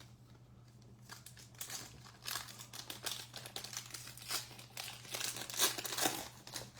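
Plastic wrapper of a baseball card pack crinkling as it is torn open, loudest near the end.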